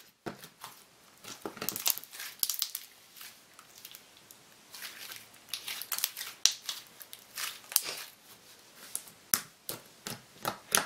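Handmade slime being squeezed and stretched by hand, giving irregular sticky crackles and clicks.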